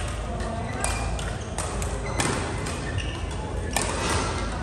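Badminton rackets striking a shuttlecock, several sharp hits at irregular intervals from games across the hall, echoing in the large sports hall. Short high squeaks of shoes on the court floor come in between the hits.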